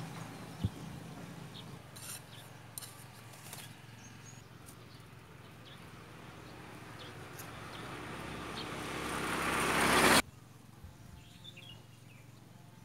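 A motor vehicle on the road growing steadily louder as it approaches, then cut off abruptly about ten seconds in. There is a sharp tap about half a second in, and faint bird chirps near the end.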